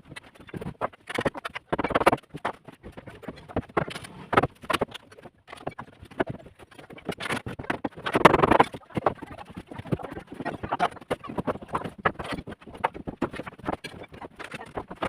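Irregular knocking and clattering of wooden formwork boards and supports being knocked loose and taken down from under a cast concrete slab, with a longer, louder clatter about eight seconds in.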